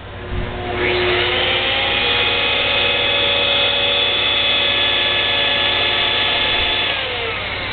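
RONG FU 4-inch portable band saw switched on: its motor and blade spin up with a rising whine, run at a steady pitch, then begin to wind down near the end.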